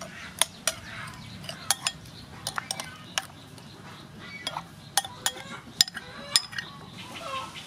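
Metal spoon stirring a thin sauce in a ceramic bowl, clinking against the bowl about a dozen times at irregular intervals.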